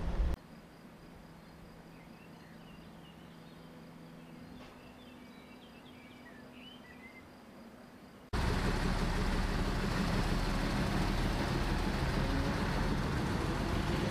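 Small birds chirping faintly, then, about eight seconds in, the sudden steady rumble of an ALn 663 diesel railcar running along the line, heard from its window.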